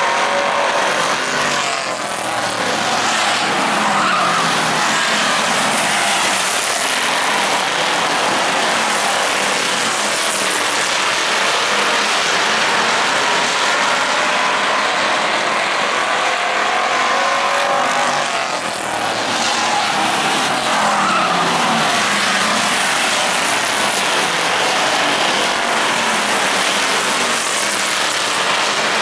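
A field of street stock race cars running laps, their engines loud and continuous, rising and falling in pitch as the cars pass and go round the turns. The sound dips briefly about two seconds in and again about nineteen seconds in.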